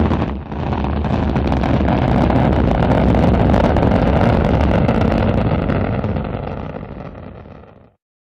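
Rocket engines firing at launch: a loud, steady rumble with a heavy deep low end, dipping briefly under a second in, then fading and cutting off near the end.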